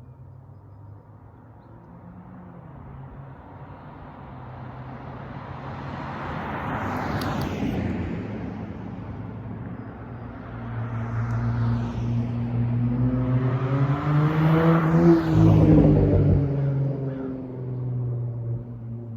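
Dodge Charger SXT's V6 exhaust through Flowmaster Outlaw mufflers at low street speed: a steady low note that swells twice, the louder swell about three-quarters of the way through, with the pitch rising and then falling as the car pulls and lets off.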